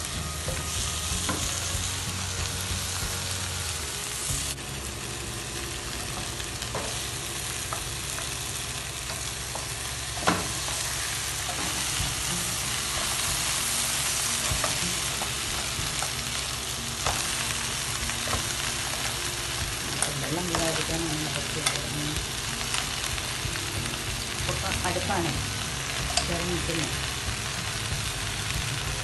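Onions and tomatoes sizzling steadily as they fry in a pan, stirred with a wooden spoon, with a few sharp knocks of the spoon against the pan.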